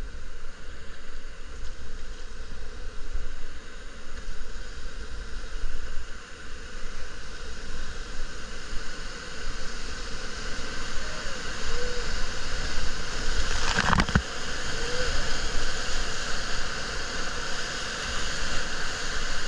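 Steady rush of a big Colorado River whitewater rapid, heard from a raft drifting into it and growing fuller past the middle. A single sharp knock comes about two-thirds of the way through.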